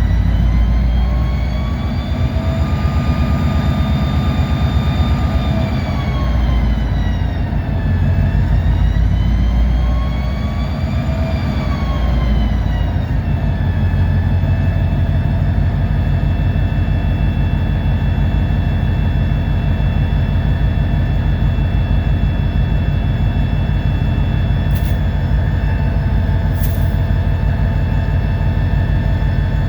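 EMD SD40-2's turbocharged 16-cylinder two-stroke diesel engine heard from inside the cab as it hauls a cut of cars. The engine ramps up and down twice as the throttle changes, a whine rising and falling over the low rumble, then holds steady. Two short clicks come near the end.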